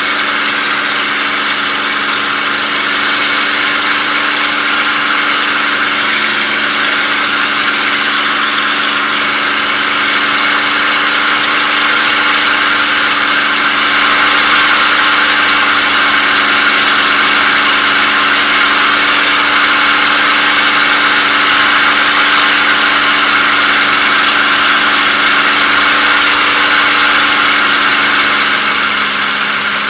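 P-51 Mustang's Packard Merlin V-12 engine running steadily at reduced power on a landing approach, with the rush of airflow, heard from inside the cockpit. It gets louder about halfway through and falls off near the end as the plane comes down to the runway.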